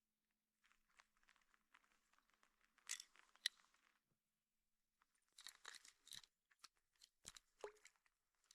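Near silence broken by faint crunching and rustling, with a few sharp clicks about three and a half seconds in and again near the end.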